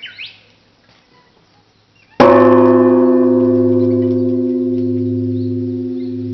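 A large Japanese temple bell (bonshō) struck once with a wooden beam about two seconds in. It rings on with a deep hum that swells and fades in slow pulses as the tone slowly dies away. A brief chirp sounds at the very start.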